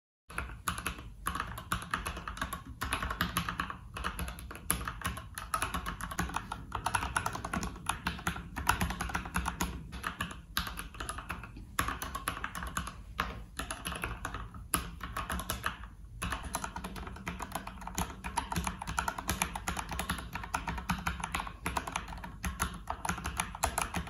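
Fast, continuous typing on a mechanical keyboard: a dense, unbroken run of key clicks that starts a moment in.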